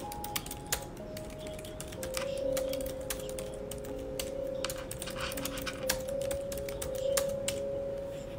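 Typing: rapid, irregular key clicks, some louder than others, over soft background music with long held notes.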